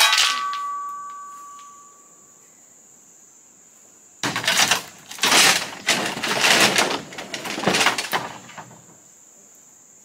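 A steel shovel strikes with a brief metallic ring as a load of gravel is thrown onto a tire rut. About four seconds later comes a run of scraping and clattering as the shovel digs into the gravel in a pickup's bed and scoops it out. A steady high insect buzz runs underneath.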